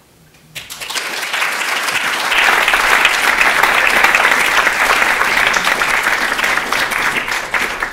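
Audience applauding: the clapping starts about half a second in, builds over the next two seconds to a steady level, and begins to thin out near the end.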